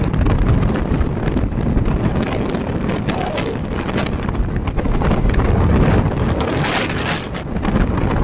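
Wind buffeting the microphone on a Yamaha R15 motorcycle being ridden along a road, a steady heavy rumble that swells and eases slightly, with the bike's running noise buried underneath.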